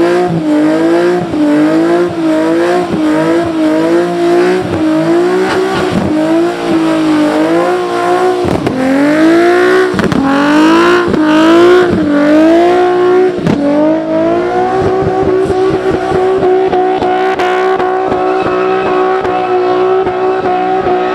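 Sports car engine held at high revs during a burnout and donuts, the pitch dipping and climbing back about once a second as the throttle is worked, then held steady near the top about two-thirds of the way through. Rear tyres spin against the pavement.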